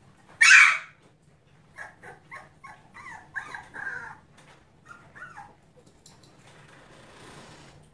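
Young puppies whining and yelping: one loud yelp about half a second in, then a run of short whines, about three a second, for the next few seconds.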